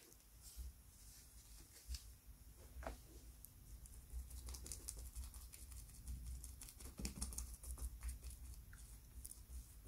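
Faint, quick dabbing and scratching of a paintbrush's bristles working a white coating into gauze wrapped over the rocking horse, a run of small ticks that thickens from about three or four seconds in, after some soft rubbing of fingers on the cloth.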